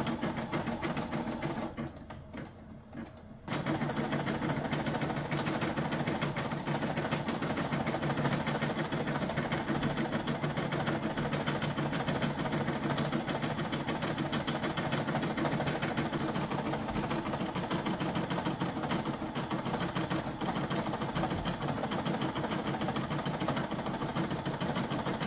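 Brother SE625 embroidery machine stitching at speed, its needle running in a fast, even rhythm, as it works through the last part of the design. It goes quiet for about two seconds near the start, then resumes steadily.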